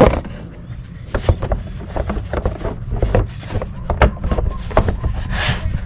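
A cover being fitted back on in a car's engine bay: a sharp click at the start, then irregular small clicks and knocks as it is handled and pressed into place, with a brief rustling hiss near the end.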